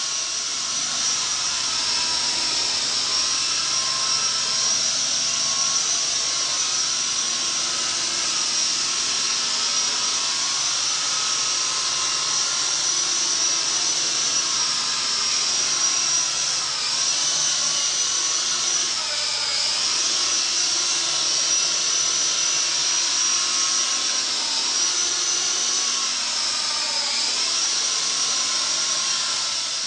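Toy RC Chinook helicopter flying, its small electric motors and rotors giving a steady high-pitched whine. The pitch dips briefly a few times.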